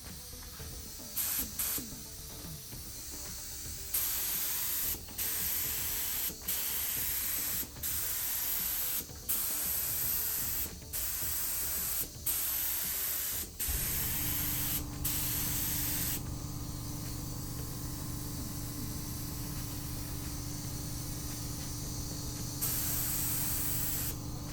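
Paint being sprayed in a series of passes: a high hiss broken by brief pauses about every second and a half, then one more pass near the end. A steady low hum starts a little past halfway and runs on.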